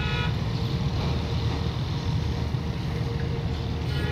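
A low engine rumbles steadily with a faint steady hum above it, and brief high chirps come near the start and again near the end.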